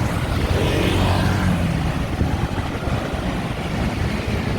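Street traffic heard from a moving bicycle, with a motor vehicle's engine humming briefly about a second in, over a steady wind rumble on the microphone.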